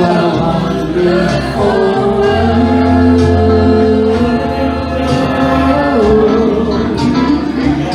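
A live band plays a song, with held sung notes over guitar and a sustained bass line.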